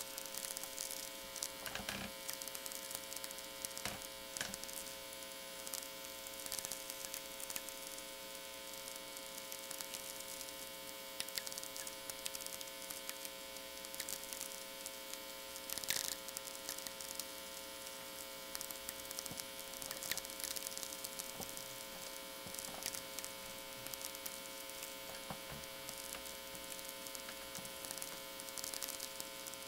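VLF natural-radio audio from a Technics SA-350 receiver modified for VLF: sferics from distant lightning crackle as irregular clicks and pops over a steady mains hum with its row of overtones.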